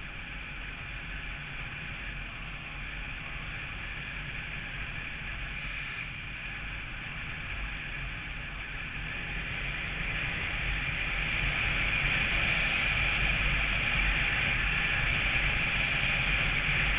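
Driving noise heard from a camera on a moving vehicle: a steady low rumble of engine and tyres with wind rushing over the microphone, growing louder about two-thirds of the way through.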